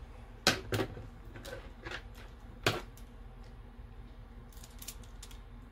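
Hard plastic drone parts clicking and knocking as they are handled and fitted together: a few sharp clicks in the first three seconds, then fainter ticks near the end.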